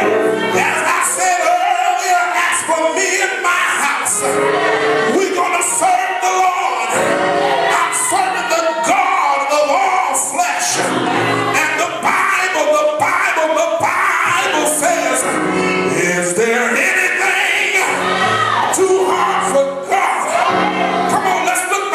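Church praise music: voices singing over live instruments, with repeated sharp high hits of cymbals or percussion throughout.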